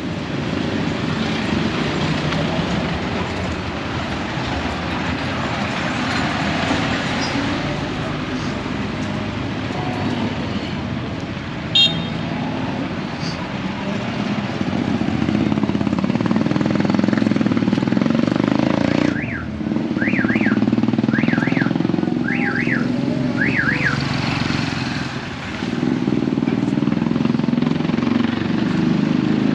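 Street traffic, with motorcycles and other vehicles running and passing steadily. Partway through, a run of about six quick chirps, each sliding up and back down, sounds over the traffic for a few seconds.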